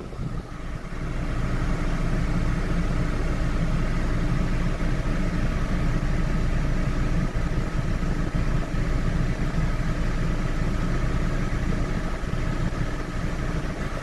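Tractor engine idling steadily, heard from inside the cab. It grows a little louder over the first second or two, then holds an even hum.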